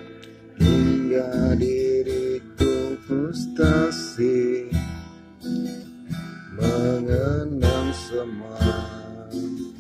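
Background music: strummed acoustic guitar with a melody line over it.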